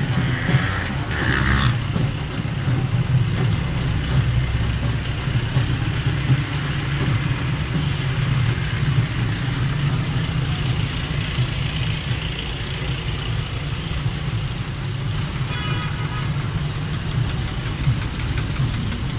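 Engines of dump trucks and a tractor running at low speed as they pass close by in a slow convoy, a steady low rumble. A short horn toot sounds about three-quarters of the way through.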